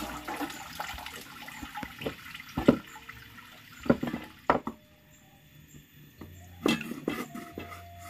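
Water splashing and trickling, broken by irregular sharp knocks and clatter.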